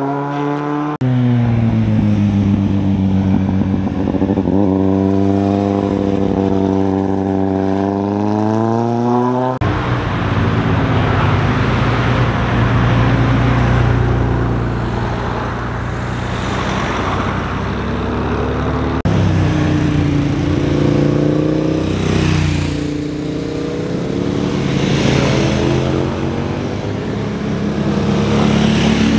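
Motorcycle engines passing on a winding road, rising and falling in pitch as the riders shift and work the throttle through the bends. The sound cuts abruptly between several separate passes.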